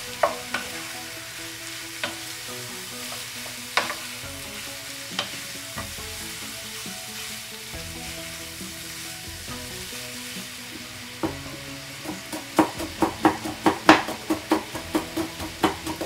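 Pork belly and onions sizzling as they fry in a frying pan, stirred with a spatula that knocks against the pan now and then. From about eleven seconds in, a chef's knife chops long green chilies on a wooden cutting board in quick strokes, about five a second. Soft background music runs underneath.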